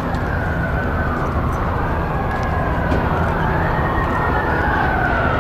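Emergency-vehicle siren wailing, its pitch slowly rising and falling, over a steady rumble of street noise.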